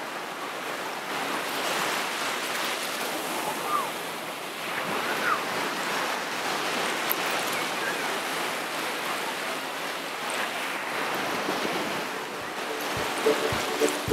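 Small waves washing up on a sandy beach: a steady rush of surf. Music comes in during the last second.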